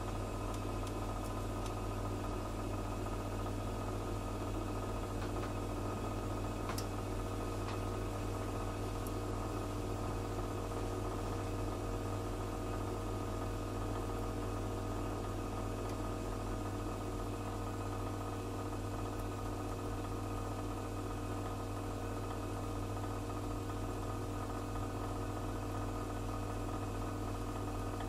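Gas flow heater burning steadily: an even hum with several constant tones over a soft hiss of gas flames, with a couple of faint ticks.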